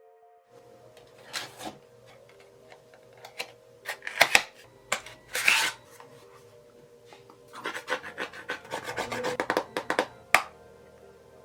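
Product packaging being handled and opened by hand: scattered rubbing swishes and sharp clicks, with a quick run of clicks near the end. Quiet background music underneath.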